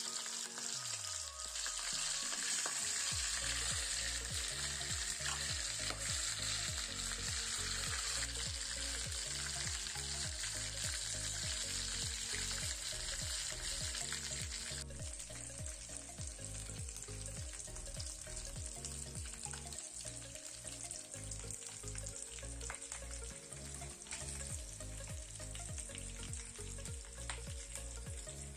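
Whole marinated chicken shallow-frying in a little hot oil in a nonstick pan: a steady sizzle that drops to a softer sizzle about halfway through.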